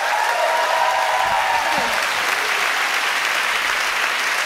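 Audience applauding at the end of a song, with a few cheers and whoops over the first two seconds.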